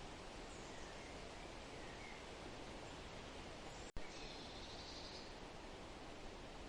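Forest ambience: a steady hiss with faint, short, high bird chirps scattered through it, and one longer, high bird call lasting about a second and a half. About four seconds in, the sound drops out for an instant and comes back with a click.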